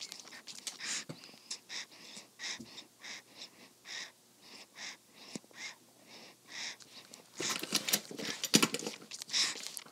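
Newborn baby sucking on a pacifier close to the microphone: soft, breathy sucking and breathing noises, about two a second, with a louder flurry about three-quarters of the way through.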